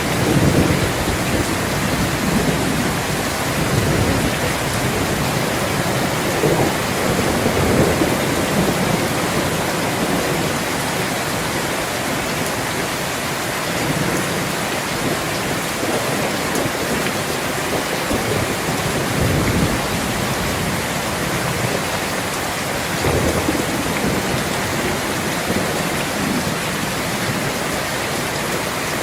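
Steady summer rain pouring down, with low rumbles of thunder swelling up several times.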